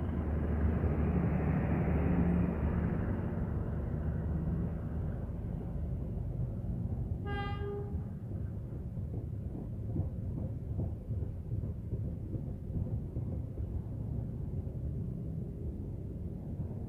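Passenger train coaches rolling past on the rails with a steady low rumble, loudest in the first few seconds. About seven seconds in a train horn gives one short toot, and in the second half the wheels clatter lightly over the track.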